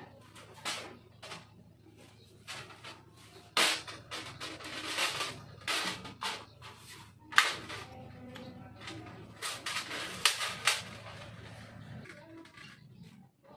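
Irregular sharp clicks and knocks of small carburetor parts and tools being handled during reassembly of a scooter carburetor, over a faint steady low hum.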